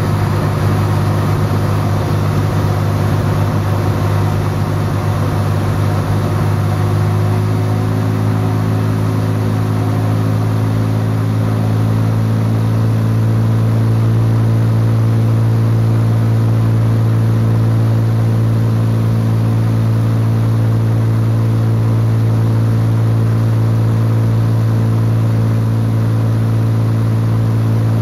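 Engine and propeller of a single-engine light aircraft, heard from inside the cockpit, running with a steady drone in flight. The tone shifts slightly between about 7 and 12 seconds in, then holds even.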